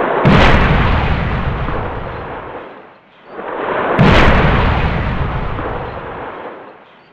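Two cinematic logo-sting sound effects, about four seconds apart: each a swelling whoosh into a sharp, bass-heavy boom that rolls away over two to three seconds.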